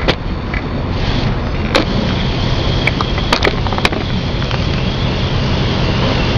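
A jet of water from a spray hose hitting the back of a van, a steady hiss over a low steady hum, with a few short clicks in the first half.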